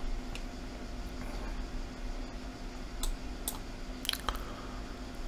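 A handful of short sharp clicks from computer mouse and keys, spread out, over a low steady hum.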